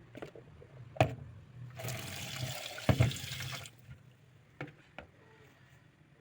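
Water running for about two seconds, with a sharp knock just before it and another near its end, then a couple of lighter clicks.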